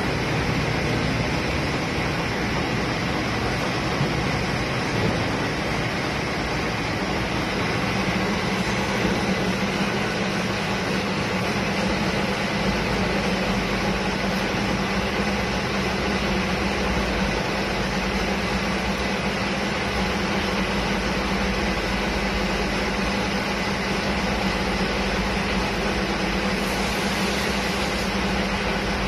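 Large engine lathe running with a steady mechanical hum from its motor and gearing. A steady lower tone joins about seven seconds in, and a deeper rumble strengthens about twelve seconds in.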